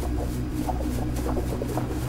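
Background music: a steady low drone with short, scattered notes above it.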